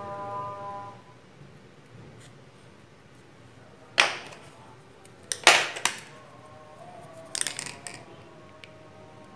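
Sharp plastic clicks and knocks from handling a 775 DC motor in its split PVC pipe mount and plastic guard. There is one click about four seconds in, a louder double knock a second and a half later, and a quick run of clicks near the end.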